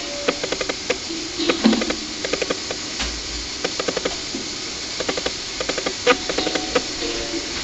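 Berimbau played in short runs of quick, pitched strikes with pauses between, as capoeira accompaniment, over a steady hiss from the old video tape.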